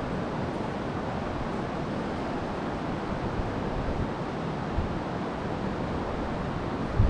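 Steady rush of wind buffeting the microphone over the flow of the river, with a brief low thump just before the end.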